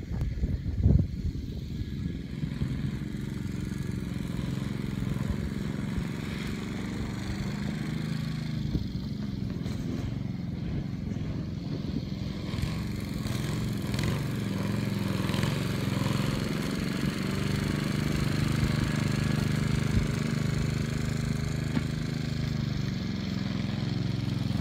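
A steady engine drone runs throughout. A few sharp thuds about a second in come from a dog knocking a rubber space hopper about.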